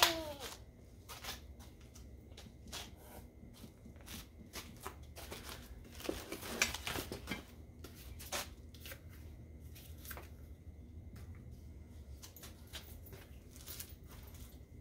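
Scattered light clicks, taps and rustles of a Wonderfold W4 Elite stroller wagon's frame and push handle being handled and fitted during assembly, busiest about six to seven seconds in.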